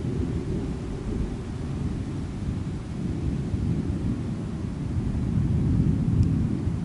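Thunder rumbling low and long, building to its loudest about two-thirds of the way through and then easing off.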